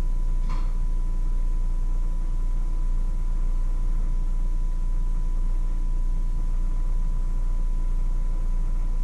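A steady low hum with a faint, thin high whine above it, and one brief click about half a second in.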